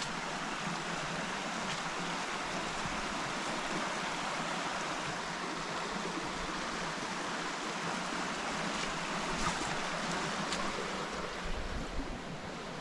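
A moorland stream running steadily: an even rush of water.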